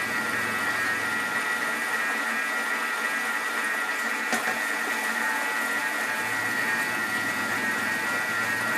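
Thermomix TM31 motor running steadily on speed 4, a constant high whine, as it mixes egg yolks, sweetener and lemon juice. There is a light click about four seconds in.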